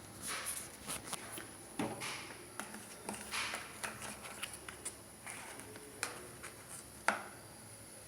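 A metal spoon scraping and tapping in a plastic bowl as turmeric powder is scooped out, amid scattered light knocks and rustles; the sharpest knock comes near the end.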